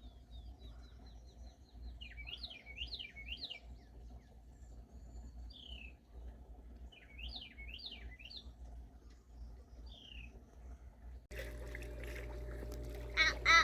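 Songbirds singing outdoors: a quick run of short high notes, then repeated looping up-and-down warbled phrases and single falling whistles. About eleven seconds in, the sound cuts to a steady hum, with a short, loud, high squeak just before the end.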